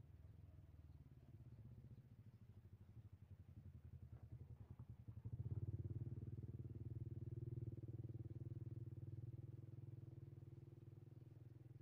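A faint engine running as a low steady hum, with a quick pulsing for a few seconds before it grows louder and steadier about five seconds in.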